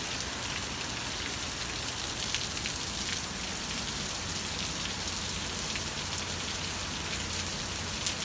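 Heavy rain falling steadily: an even hiss with scattered ticks of drops striking.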